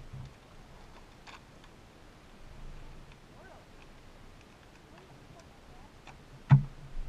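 Quiet with a few light ticks, then one sharp knock with a low thud about six and a half seconds in: a hard knock on the fibreglass deck of a bass boat.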